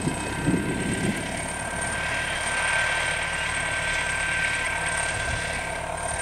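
Crawler bulldozer working, its diesel engine running steadily with track and machinery noise as it pushes a heap of earth with its blade; a little louder from about two seconds in.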